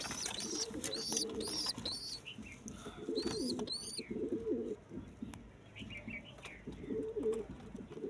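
Domestic pigeons cooing: low, wavering coos in three or four bouts, with quick high chirps repeating through the first half.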